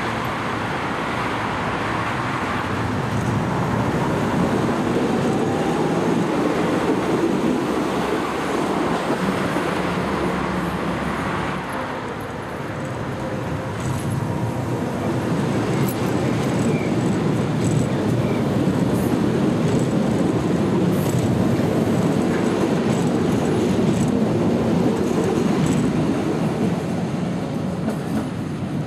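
DT8 light rail trains running past on the tracks: a steady rumble of wheels on rail and traction motors, dipping briefly about twelve seconds in and then louder as a train passes close.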